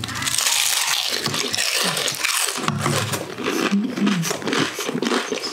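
Close, loud crunching and chewing of crispy deep-fried pork intestine chicharon, with many sharp crackling bites in quick succession.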